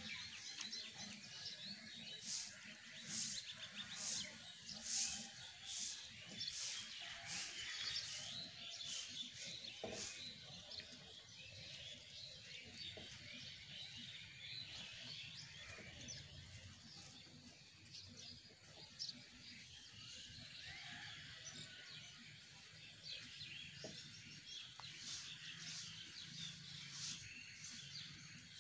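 Small birds chirping continuously, with short, sharp swishes of a hand broom splashing cow-dung water over the wet ground, frequent in the first ten seconds and again near the end.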